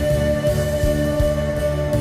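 Background pop music in an instrumental passage before the vocals: a held high note over a pulsing bass line.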